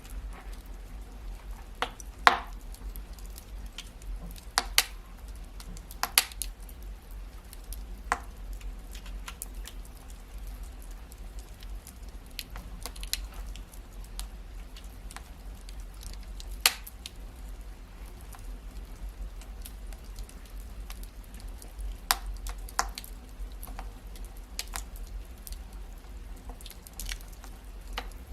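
Wood fire crackling: scattered sharp pops and snaps over a low steady rumble, the loudest pop about two seconds in.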